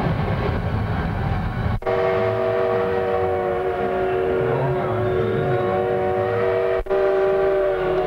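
Steam train sound effect played over a show's loudspeakers: a low rumble, then from about two seconds in a long multi-note train whistle held for several seconds. The sound cuts out abruptly twice.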